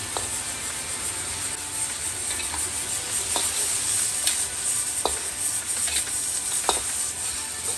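Chopped goose sizzling in a hot iron wok while a metal ladle stir-fries it, scraping and clinking against the pan about once a second over a steady sizzle.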